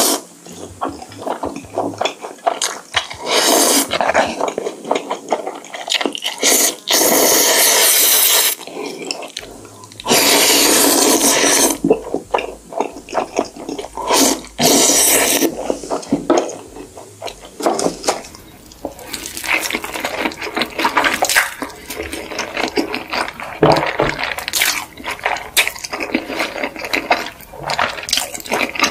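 A person eating noodles, slurping them loudly in several long pulls of a second or two each in the first half. After that come many shorter wet chewing and smacking sounds.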